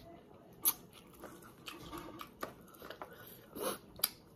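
Close mouth sounds of someone eating juicy Marian plum: chewing with wet smacks and sucking at the lips and fingers, with about five sharp clicks spread through.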